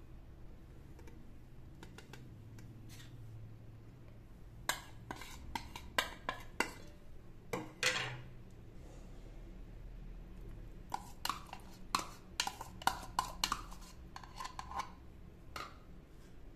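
Metal spoon clinking and scraping against a plate and a metal cooking pot as spices and curd are spooned in: scattered light clinks in two bouts, starting a few seconds in and again past the middle.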